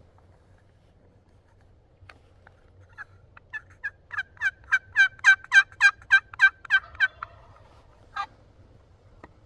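Turkey yelping: a run of about fourteen evenly spaced yelps, each falling in pitch, growing louder to a peak and then trailing off, followed by a single yelp about a second later.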